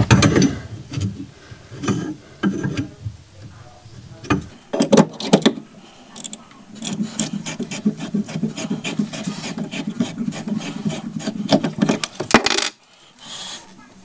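Copper pipe being cut with a pipe slice (rotary pipe cutter) turned round the pipe: after a few knocks from handling, a steady rasping with many sharp clicks runs from about four seconds in and stops near the end.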